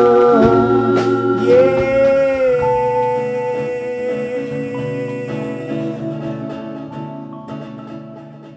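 A live band with a male lead singer holding long, strained notes over guitar and band, one note sliding up and held about a second and a half in; the music fades out near the end.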